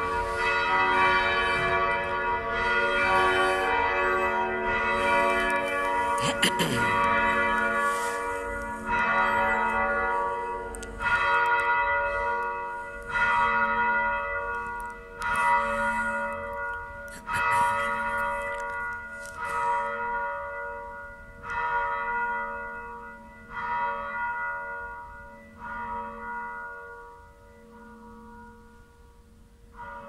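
Church bells ringing, heard from inside the church. Several bells overlap at first; then single strikes come about every two seconds, each ringing on, and the ringing fades as the peal winds down.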